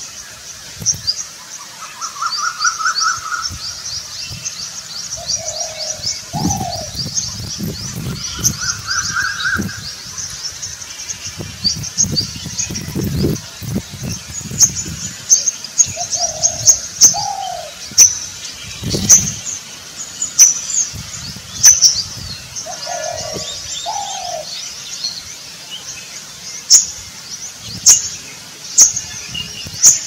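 Spotted dove cooing in short two-note phrases, three times, over continual rapid high-pitched chirping of small birds.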